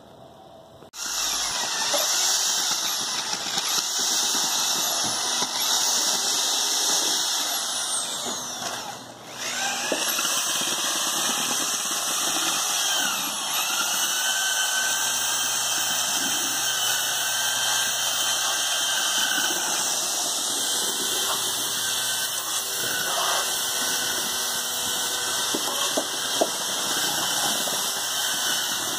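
Electric drill with a paddle mixer churning stucco in a bucket: a loud, steady motor whine whose pitch sags and recovers as the paddle loads up in the thick mix.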